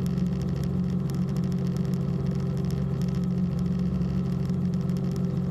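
Aircraft engine droning steadily, heard inside the cabin: a constant low hum that holds one pitch throughout.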